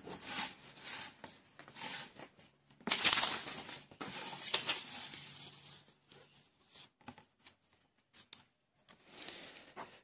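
Paper rustling and brushing under a hand and ballpoint pen in soft, irregular bursts, loudest about three seconds in, then a few light taps and scratches near the end.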